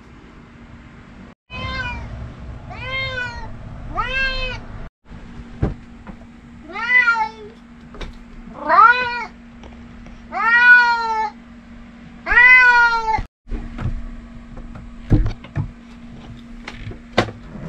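Bengal cat meowing insistently for food: seven rising-and-falling meows, the last four longer and louder, then a few light knocks near the end.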